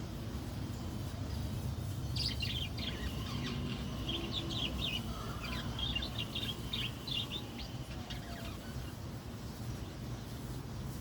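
Lovebirds chirping: a quick string of short, high calls from about two seconds in until a few seconds before the end, over a steady low background hum.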